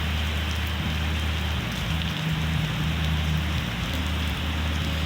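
Steady rain falling: a continuous, even hiss with faint scattered drop ticks.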